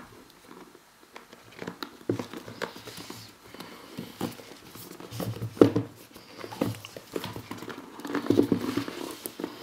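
A cardboard presentation box handled with bare hands: irregular taps, knocks and rubbing of fingers on the card as the box is turned and the tight two-part lid is worked loose. A single sharp knock comes a little past halfway, and a longer stretch of rubbing follows near the end.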